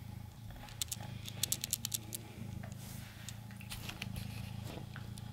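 Bengal mother cat purring low and steady while her newborn kittens nurse, with a run of small quick clicks from the suckling kittens about one to two seconds in and a few more near the end.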